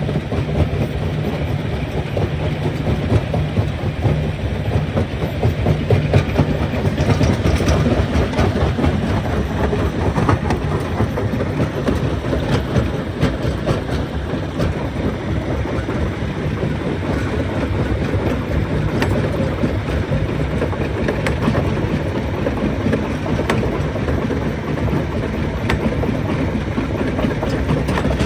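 Rock crusher running under load: a steady low machine drone with constant rattling clatter and scattered sharp knocks of stone.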